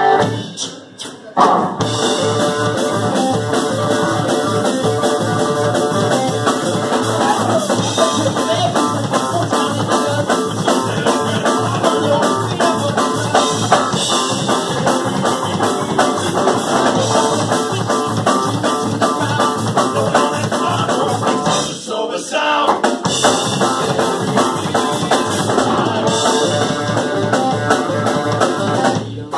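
Live thrash-grass band, thrash metal crossed with bluegrass, playing a fast song on electric guitar, bass, acoustic guitar and drum kit, driven by a quick steady drum beat. The band stops briefly about a second in and again for a moment around twenty-two seconds in.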